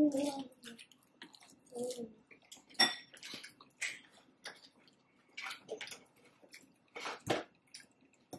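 Close-miked eating sounds: irregular wet mouth clicks and chewing of taco salad, with a utensil tapping the bowl and one short ringing clink about three seconds in.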